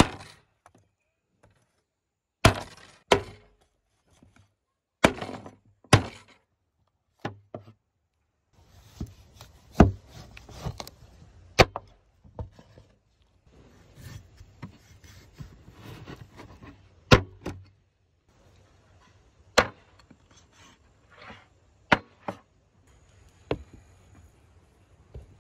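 Cleaver chopping through lamb rib bones into a wooden cutting board: sharp single blows at uneven intervals, one to a few seconds apart, with quieter handling of the meat between them.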